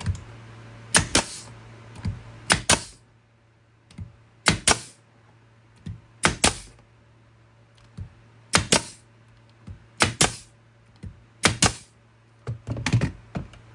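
Pneumatic brad nailer firing 2-inch nails, about eight shots roughly one and a half seconds apart, each a sharp double crack as the driver fires and snaps back.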